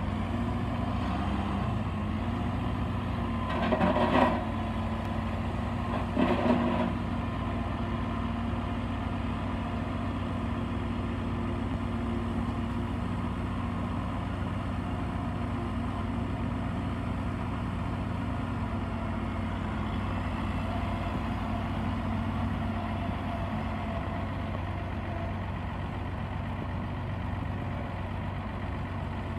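Kubota L5240 tractor's diesel engine running steadily as the tractor moves off, with two brief louder bursts about four and six seconds in.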